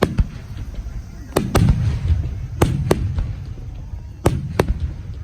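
Aerial fireworks shells bursting overhead: one sharp bang at the start, then three pairs of bangs, the two in each pair a fraction of a second apart, each bang trailing off in a low rumbling echo.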